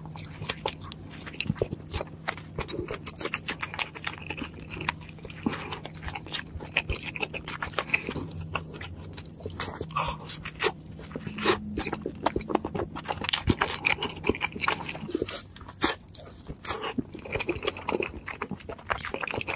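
Close-miked biting and chewing of a cheeseburger: a dense run of wet clicks, smacks and crunches from the mouth. A low steady hum sits under it and stops about three-quarters of the way through.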